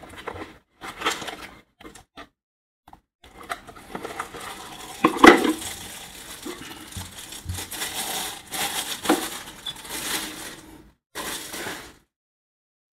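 Handling noise from unpacking a metal espresso dosing cup: cardboard box flaps and plastic wrapping rustling and crinkling, with light metal clinks and a sharp knock about five seconds in.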